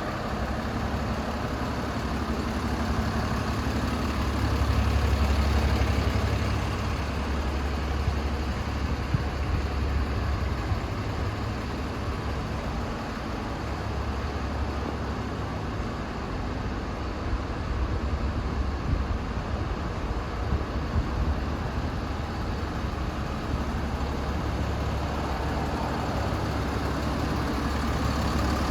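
DAF CF250 lorry's diesel engine idling with a steady low rumble that swells briefly a few seconds in.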